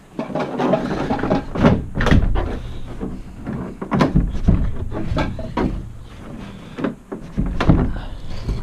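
A quick run of knocks, clunks and rattles from a bus's interior ceiling trim panels being handled and worked loose by hand.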